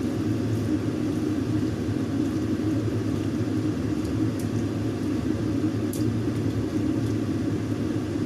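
Steady low rumbling whir from the stove while a pot of Chinese kale boils, with a few faint clicks.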